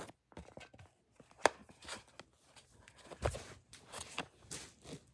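Faint handling noise from a phone being picked up and moved: scattered light knocks and rustles, the sharpest about one and a half seconds in and a small cluster a little after three seconds.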